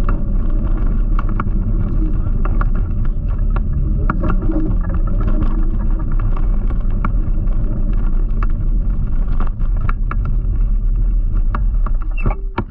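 Wind buffeting the microphone and road rumble while riding an electric scooter, with scattered sharp clicks and rattles from bumps in the path. The noise is loud and steady and cuts off suddenly near the end.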